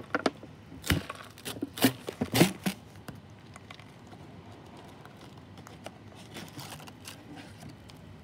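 Packaging of a Nongshim kimchi big bowl cup noodle being opened by hand: a run of sharp crinkling and tearing in the first three seconds, then faint scattered rustling.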